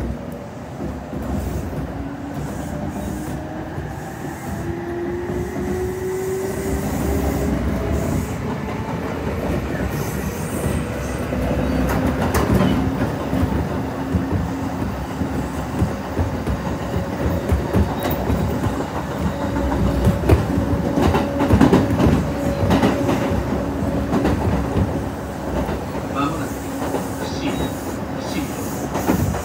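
Kintetsu 8600 series electric train running: the traction motors' hum rises in pitch over the first several seconds as the train gathers speed, then holds steady, with wheels clacking over rail joints in the middle stretch.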